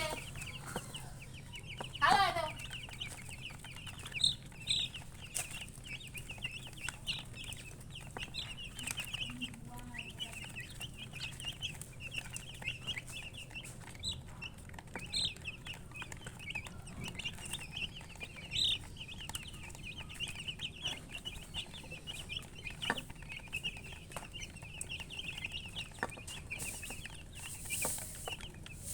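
Baby chicks peeping constantly in short, high cheeps, with one louder call falling in pitch about two seconds in.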